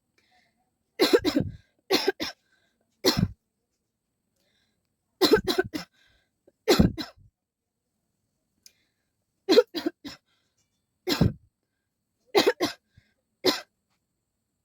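A person coughing in short fits, about nine in all, many of them two quick coughs in a row, with silent gaps of one to two seconds between fits.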